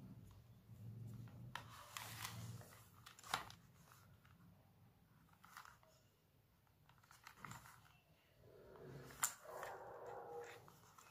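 Faint handling noise from a plastic wired headset and its cable being turned over in cotton-gloved hands: soft rustling with a few sharp plastic clicks, the sharpest a little after three seconds and about nine seconds in.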